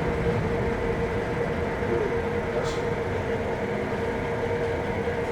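Steady drone and rumble of a ship's machinery, with a constant mid-pitched hum running through it.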